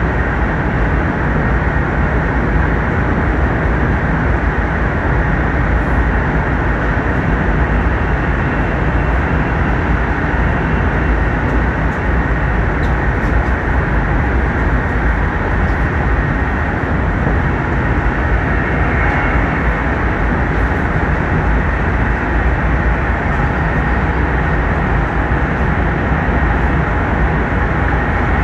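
Steady running noise of a Hokkaido Shinkansen bullet train at speed, heard inside the passenger cabin: an even, heavy low rumble of wheels and air. The train is in a tunnel.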